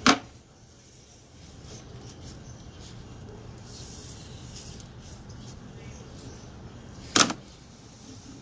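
Two short, sharp knocks about seven seconds apart, over a low steady hum.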